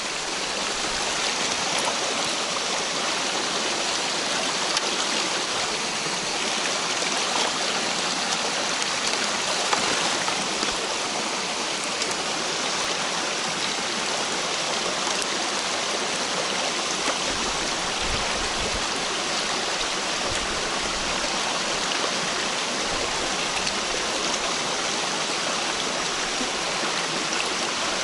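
Mountain stream water rushing steadily, an even unbroken wash of noise.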